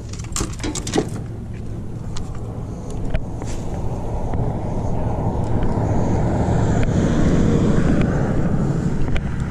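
Fishing rods and gear clatter as a rod is pulled from a utility vehicle's cargo bed. Then the utility vehicle runs and drives along with a steady low hum, getting louder about three seconds in and holding there.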